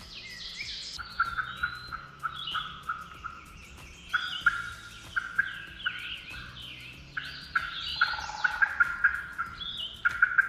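Wild turkeys calling: runs of yelps, about three notes a second, with a gobble about eight seconds in. Songbirds chirp above them.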